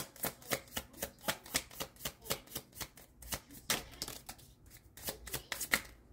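A deck of cartomancy cards being shuffled by hand, a steady run of card flicks about four a second that stops near the end.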